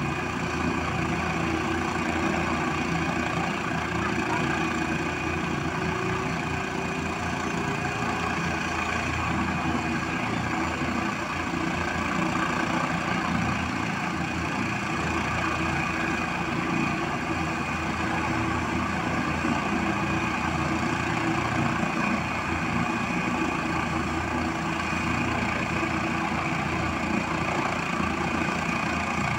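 Helicopter idling on the ground: its turbine engines run steadily, with a constant high whine over a dense low engine rumble.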